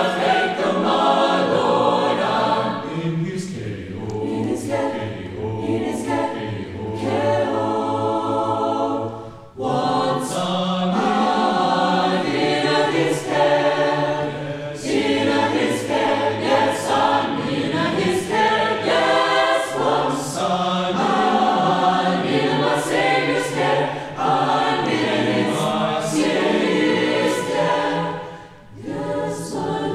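A 23-voice chamber choir singing an a cappella spiritual arrangement in parts, with no instruments. The singing breaks off briefly about a third of the way in and again near the end.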